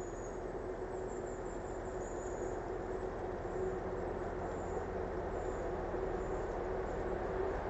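A steady distant rumble with a constant hum running through it, slowly growing louder, and a few faint, short, high squeaks above it.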